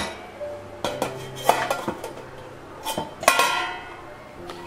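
Stainless steel lid clinking against the cake pan as it is handled and lifted off: several sharp metal knocks with a brief ring, the loudest about three seconds in.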